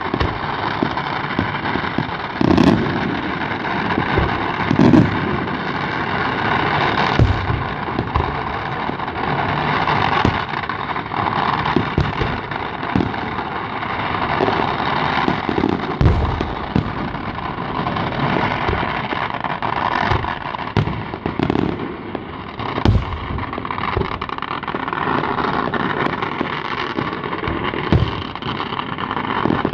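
Fireworks display: shells bursting with sharp bangs at irregular intervals, several louder booms among them, over a continuous rushing, crackling noise.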